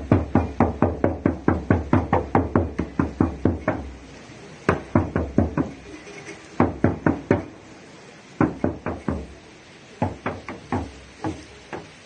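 Hand-held frame drum struck with a beater: an even run of about four beats a second, then short groups of four or five beats with brief pauses between them.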